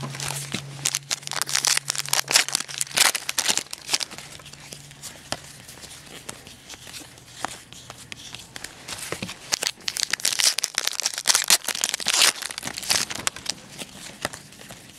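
Football trading cards flipped through and shuffled by hand: bursts of crisp rustling and card snaps, busiest in the first three seconds and again about ten to thirteen seconds in.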